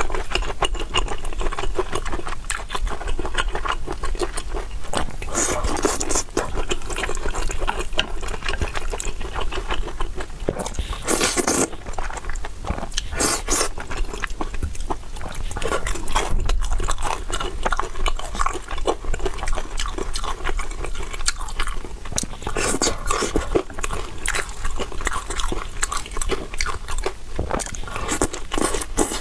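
Close-miked mukbang eating: wet chewing and mouth clicks, with a few louder slurps or scrapes along the way.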